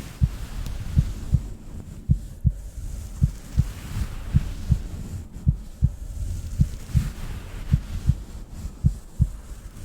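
Slow heartbeat: paired low thumps, lub-dub, a little slower than once a second, over a steady low rumble.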